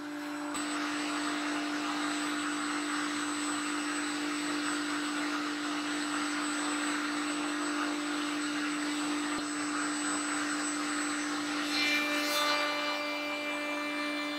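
Router table running at a steady high-speed whine, its round-over bit cutting the edge of a board fed past it, cutting sweetly with the grain. The sound grows brighter about twelve seconds in.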